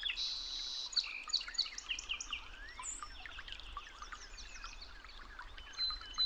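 Several birds chirping and calling over one another in short, quick notes, with a brief high trill near the start.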